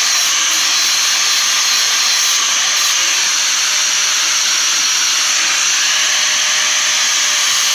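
Electric grinder sharpening a steel blade held against its wheel, giving a steady, even grinding hiss.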